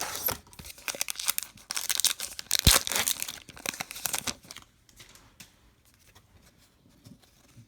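A trading-card pack wrapper being torn open and crinkled, with a sharp tap a little before three seconds in; the crackling stops about four and a half seconds in, leaving only faint handling clicks.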